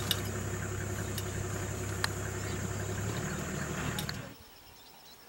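Safari vehicle's engine idling steadily, with a high insect drone above it; both cut off abruptly about four seconds in, leaving near quiet, with a few light clicks along the way.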